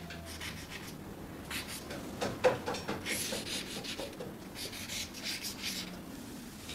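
Soft, irregular scratching and rubbing of a drawing tool on paper at a drawing table, in two short spells, about one and a half seconds in and again near five seconds.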